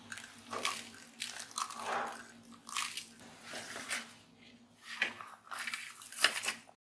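Hands rubbing coarse salt into raw fish in a plastic bowl, in short irregular bursts of gritty rubbing and handling, over a faint steady hum. It cuts off suddenly near the end.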